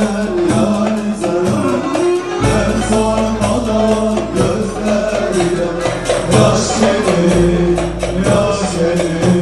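Live Turkish folk music: men singing into microphones over an amplified band of bağlama, keyboard and drums keeping a steady beat.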